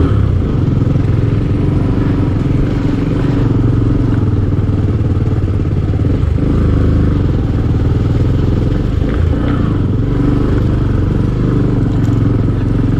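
Motorcycle engine running steadily while the bike is ridden along a rough dirt track, with a little rattling.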